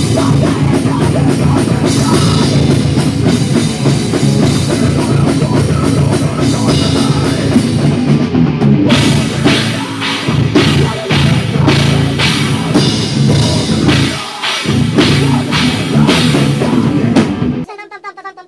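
Loud rock band playing live, drum kit and electric guitar together. There is a brief break about fourteen seconds in, and the band stops suddenly near the end.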